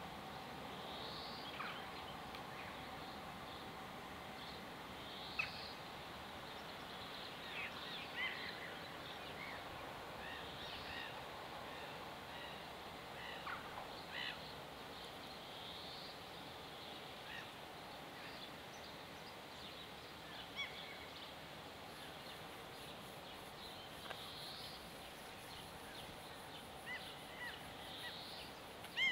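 Faint outdoor ambience with birds chirping now and then: short, scattered calls, a few louder than the rest.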